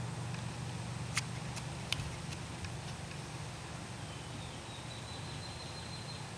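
Small handling clicks and taps, two sharp ones about a second apart, as a small object is picked up and handled, over a steady low hum. A faint, thin, high steady tone comes in near the end.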